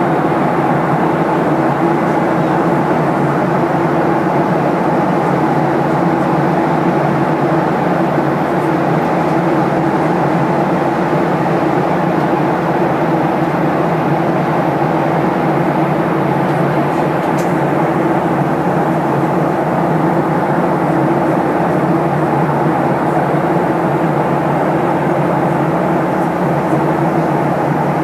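Steady cabin noise inside a Boeing 737-800 in flight: an even rush of engine and airflow noise with a constant low hum.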